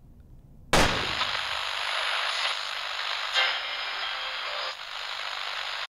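A trailer title sting: a sudden loud hit about a second in, then a harsh static-like hiss with faint tones in it, which cuts off abruptly near the end.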